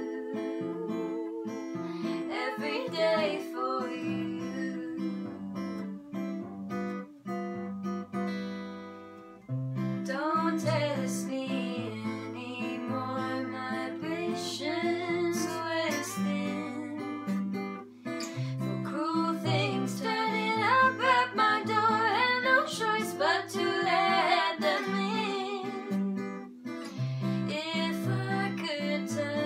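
Acoustic guitar strummed and picked steadily, with a wordless melodic vocal line over it.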